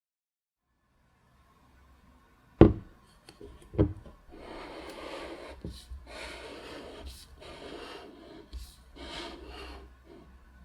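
Hands handling things: two sharp knocks about a second apart, then rustling and rubbing in several short stretches.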